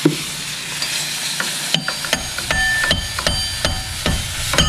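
Metal hand tools clinking and clicking against engine parts: a quick run of sharp metallic clicks with a brief ring, about five a second, starting a little under two seconds in, over a steady hiss.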